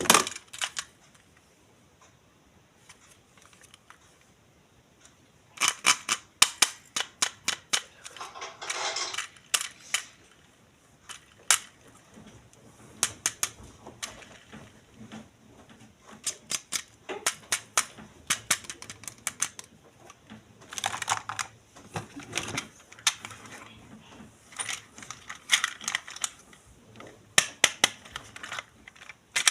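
Sharp plastic clicks and snaps with short bursts of rustling as toys and their plastic packaging are handled and unboxed. It is fairly quiet for the first few seconds, then clicks come thick and fast in irregular clusters.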